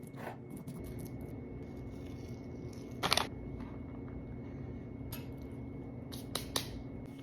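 A few sharp clicks and knocks of kitchen utensils and dishes during food preparation, the clearest about three seconds in and a quick cluster near the end, over a steady low hum.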